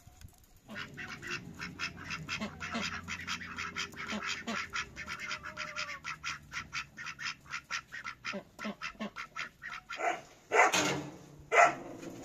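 A flock of domestic ducks quacking, with quick short calls several times a second. Near the end come two louder, harsher noises.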